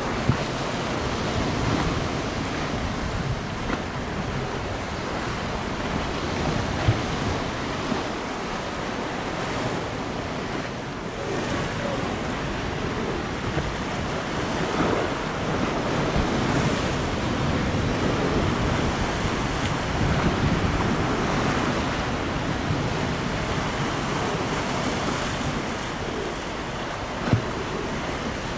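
Wind rushing across the microphone over choppy river water lapping and breaking on shoreline rocks, with a few brief louder bumps from gusts.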